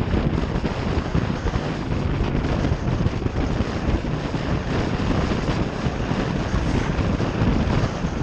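Steady wind rush on the microphone of a motorcycle under way, a dense low rumble with the bike's running noise mixed in and no let-up.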